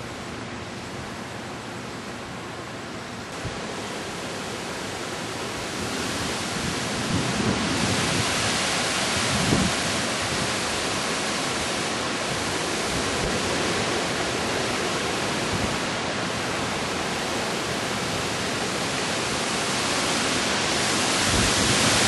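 Strong wind of a Hurricane Ike wind storm rushing through trees: a steady hiss that builds over the first several seconds and then holds in gusts.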